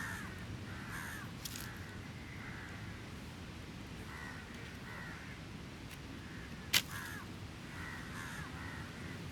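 Crows cawing over and over, the calls coming in quick runs throughout. A single sharp pop from the campfire stands out about two-thirds of the way through, over a steady low wash of surf.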